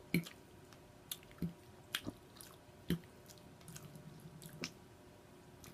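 Wet mouth sounds of a person eating chicken and noodles: scattered lip smacks and squishy chewing clicks, about seven in all, with a faint low hum about four seconds in.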